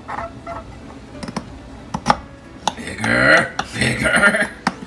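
Knife cutting through baked cookie bars and clicking against the bottom of a glass baking dish, a series of sharp separate clicks. A voice speaks loudly for about a second a little past the middle.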